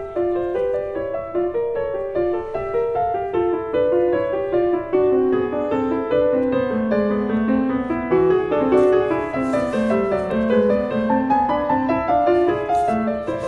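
Background piano music: a gentle melody of short notes.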